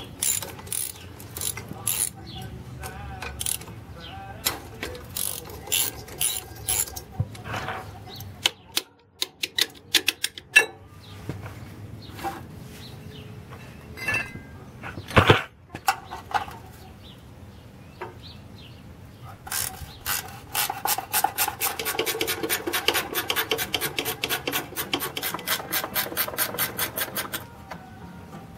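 Hand ratchet wrench and tools working on a small Briggs & Stratton engine: scattered metallic clicks and taps, with one loud knock about halfway. From about twenty seconds in comes a long run of rapid, even ratchet clicks as a bolt is spun out.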